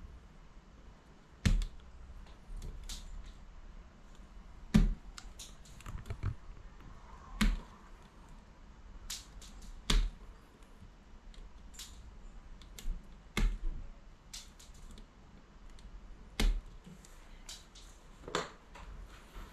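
Hand tools stripping the insulation from electrical cable ends: sharp, irregular clicks and snaps, the loudest about every two to three seconds, with fainter ticks between.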